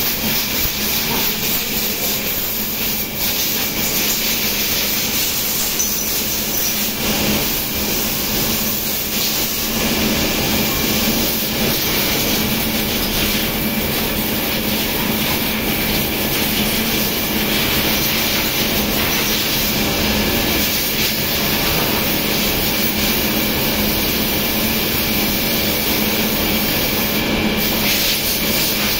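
Circular knitting machine running: a loud, steady mechanical drone with hiss and a faint constant hum.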